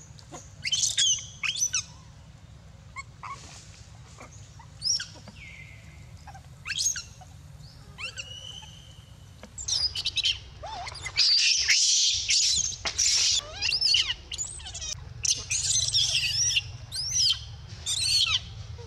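Baby long-tailed macaque screaming in high, wavering squeals, a few scattered at first and then coming thick and fast from about halfway on: crying to nurse, kept from its mother's milk.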